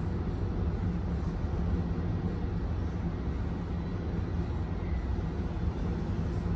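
Alstom Citadis X05 electric tram in motion, heard from inside the passenger car: a steady low rumble and hum.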